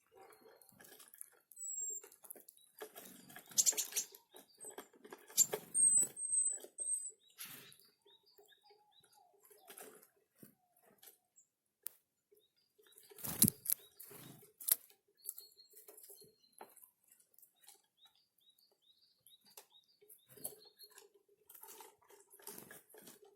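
Small forest birds at a winter feeding spot: scattered short, high chirps and call notes, mixed with sharp taps and brief rustling bursts. The loudest tap comes about halfway through.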